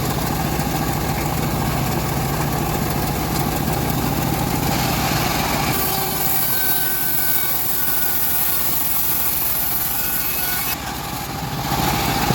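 Homemade bandsaw sawmill running steadily with a constant low machine hum. A little before halfway a high hiss comes in over it and stops suddenly near the end.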